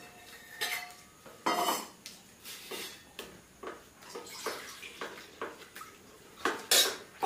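Stainless steel plates, bowls and a steel serving pot clinking and scraping as food is served and eaten by hand: irregular clinks, the loudest near the end.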